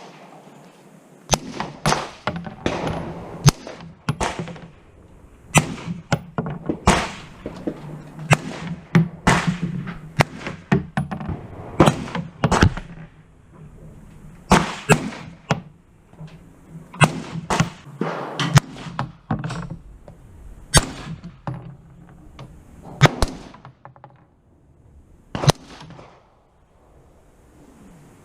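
Irregular series of semi-automatic rifle shots from a Daniel Defense AR-style rifle, about two dozen sharp cracks spaced a fraction of a second to a couple of seconds apart, some followed by a brief metallic clang.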